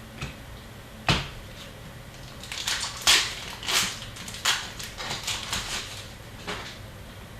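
Hockey trading cards and their packaging being handled: a sharp click about a second in, then a run of crisp, irregular crinkles and snaps as cards are flipped and shuffled.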